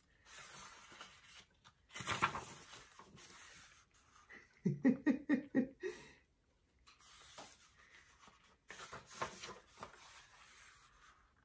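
A woman's faint voice: a breathy murmur and a short run of quick, soft laughing pulses, with the rustle of stiff book pages being handled and turned.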